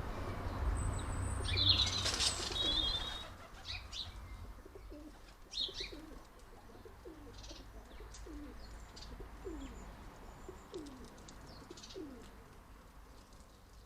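A common blackbird takes off with a rapid, screeching chatter and a rush of wing flaps about two seconds in. Then come scattered faint chirps and a series of short, low, falling calls about once a second.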